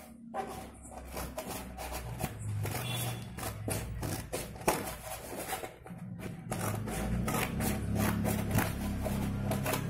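Sheet of chart paper rolled into a cone, rustling and crinkling as hands grip and shift it, in a quick irregular run of soft scrapes and crackles.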